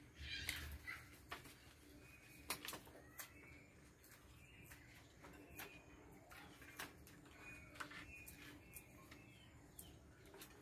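Purple swamphens giving faint, short calls, with sharp clicks or taps about once a second.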